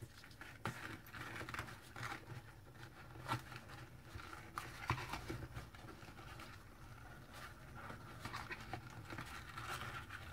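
Faint rustling of organza ribbon and cardstock being handled as a ribbon is tied into a bow around a paper cracker, with a few light clicks.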